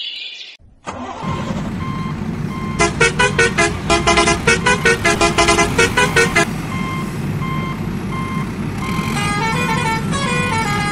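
Truck sound effect: a low engine rumble starting about a second in, with a reversing beeper sounding about twice a second. A quick electronic tune plays over it from about three seconds in until about six, and again from about nine seconds.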